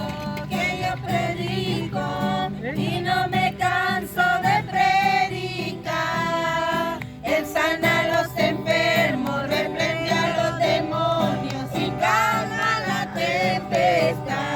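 A song with singing voices over steady instrumental accompaniment.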